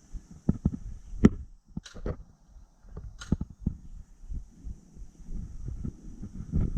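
Irregular dull thumps and rustling from an airsoft player moving about, with a few sharp clicks about one, two and three seconds in.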